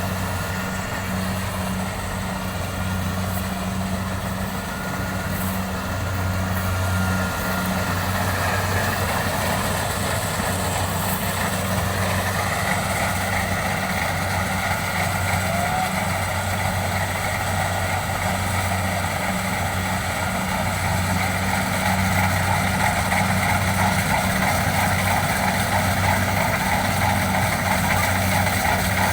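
Combine harvester running steadily with a constant low engine drone and a mechanical whirr and hiss over it, getting a little louder from about halfway through.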